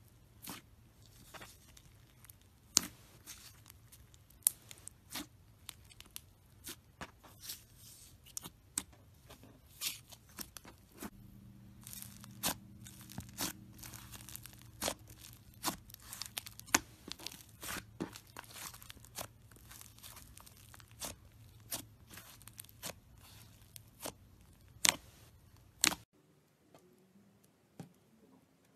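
Hands squeezing and stretching thick glossy slime, with sharp irregular pops and crackles as trapped air bursts out of it, sometimes several a second. The popping stops abruptly near the end.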